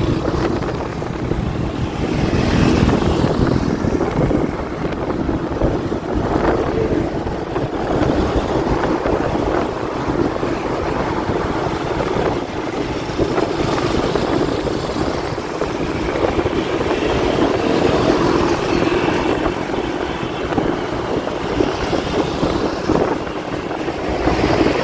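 Steady vehicle road noise from riding along a busy road, with some wind on the microphone.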